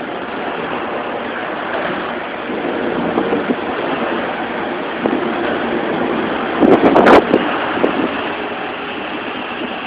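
Skateboard wheels rolling over the concrete floor of a parking garage, a steady rumble. About seven seconds in there is a brief, louder clatter.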